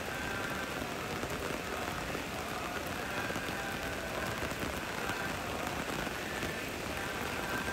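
Heavy rain falling steadily on wet paving and standing water, an even hiss of splashing drops.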